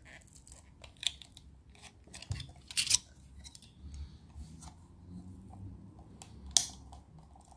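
Utility knife blade prying and scraping at the plastic of a computer mouse: quiet, scattered small clicks and short scrapes, the sharpest about three seconds in and again near the end.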